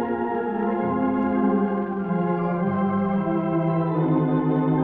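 Standaart 3/15 theatre pipe organ playing slow, sustained chords that change step by step, heard from a 1934 78 rpm shellac record, dull with no treble and with a faint click or two of surface noise.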